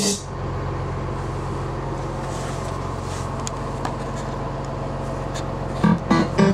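Party bus engine running, a steady low drone heard inside the passenger cabin while the music pauses. The music starts again near the end.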